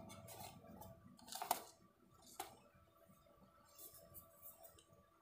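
Near silence: faint room tone, with a brief rustle about a second and a half in and a single faint click about a second later.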